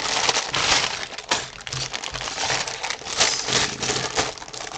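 Plastic bags of Lego pieces crinkling as they are handled, with the small plastic pieces clinking and rattling against each other.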